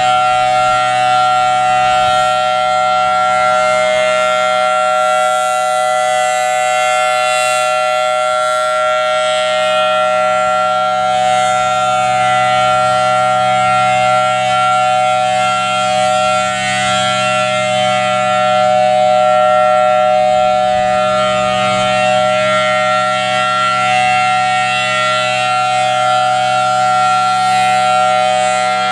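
Federal Signal Thunderbolt 1000AT warning siren sounding a loud, steady wail at full pitch, its loudness swelling slightly around the middle.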